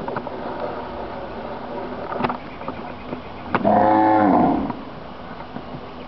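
A cow moos once, about three and a half seconds in. It is a single loud call of about a second whose pitch falls at the end.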